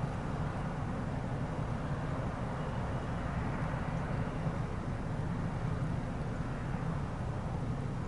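Steady rumble of a freight train's last cars, a tank car and autoracks, rolling away on the rails.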